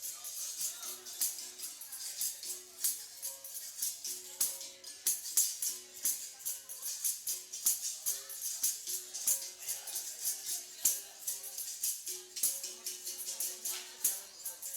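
Capoeira Angola music: a steady rhythm of shaker rattles and tambourine jingles over short pitched notes that switch between two or three pitches.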